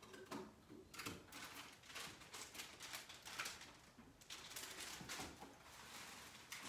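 Faint, irregular light taps and clicks, several a second.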